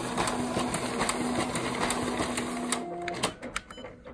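Fuji Xerox ApeosPort-IV colour copier's document feeder and scanner running as they pull a five-page document through: a steady motor hum with a rapid series of clicks. It winds down about three seconds in and stops after a few last clicks, the sign that the scan is finished.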